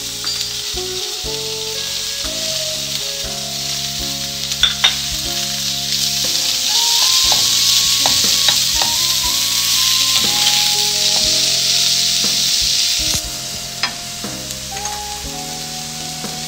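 Chopped onions and curry leaves sizzling in hot oil in a stainless steel frying pan as they are stirred with a wooden spatula. The sizzle grows louder about six seconds in and drops back suddenly about thirteen seconds in, with a few sharp clicks of the spatula against the pan.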